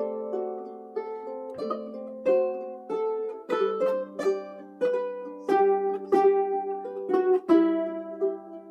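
Ukulele playing a slow tune, plucked melody notes and chords ringing out one after another.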